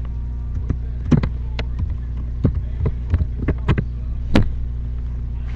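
Irregular sharp clicks, about a dozen in all and bunched in the middle, over a steady low hum.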